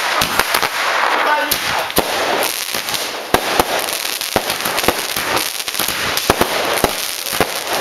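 A single-ignition firework barrage cake firing: a rapid, uneven run of sharp bangs and crackles as its shots burst, with a dense rushing patch about a second in.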